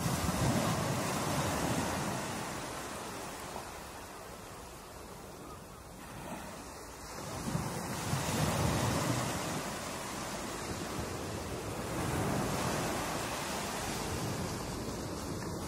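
Ocean surf breaking on a point break, a steady rushing wash of water that surges louder near the start and again about eight seconds in.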